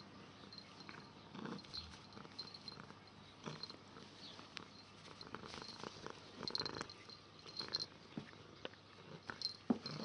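A domestic cat purring while being rubbed and play-wrestled by a hand, with scattered soft rustles and taps of fur and paws against the hand.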